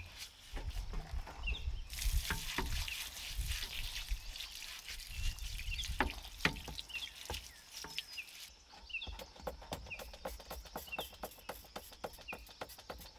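Cleaning greasy parts of an old tractor: irregular small clicks, dripping and a few dull knocks in the first few seconds, with short bird chirps throughout.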